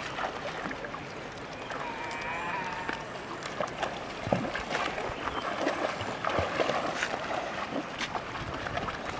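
Shallow river water sloshing and splashing as a person and a dog wade through it over stones, with scattered small knocks and a brief wavering high tone about two seconds in.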